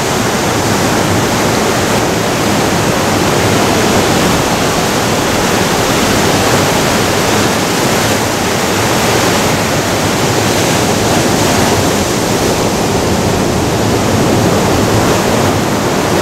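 Ocean surf breaking and washing over rocks on the shore, a steady loud rush of noise with no separate crashes.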